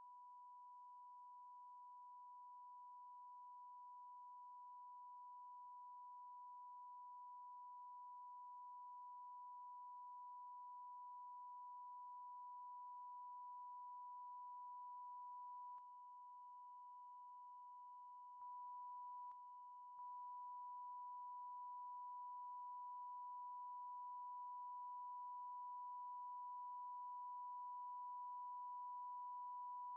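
Steady electronic test tone: one pure pitch held without a break, faint, with slight dips in level about halfway through. It is a line-up reference tone recorded at the head of the videotape.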